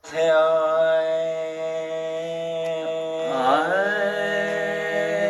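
A voice holding one long, steady sung note, chant-like. About three and a half seconds in, the pitch dips and slides back up a little higher, then holds again.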